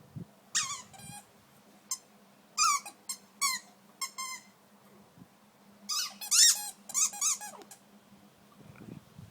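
Squeaky dog toy squeaking in short, high-pitched bursts as a dog plays with it, in several clusters of squeaks.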